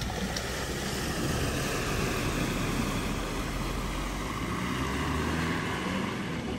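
Estate car driving slowly through a flooded ford: the steady rush and wash of water pushed aside by its wheels over a low engine hum. The deepest rumble fades about two-thirds of the way through as the car leaves the water.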